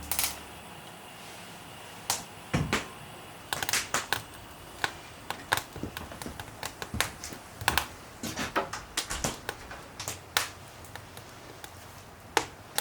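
Freshly lit wood fire crackling, with sharp, irregular pops and snaps, some in quick clusters.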